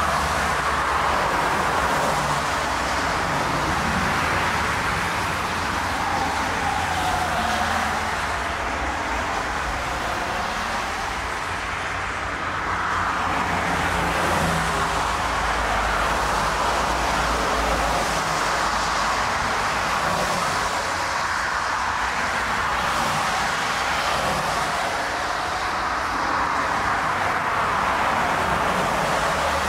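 Airbus A330-200 airliner on short final approach, its jet engines making a steady, even roar that holds without a break. Gusty crosswind on the microphone adds an uneven low rumble.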